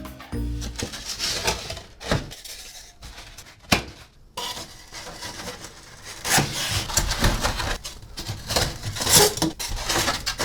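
Hands working insulation into place against a steel panel: irregular rubbing and scraping with scattered knocks, one sharp click just under four seconds in, and busier scraping in the second half.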